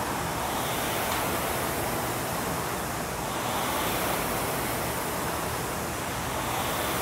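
Air-resistance flywheels of several Concept2 indoor rowing machines spinning under steady rowing, a continuous whooshing rush.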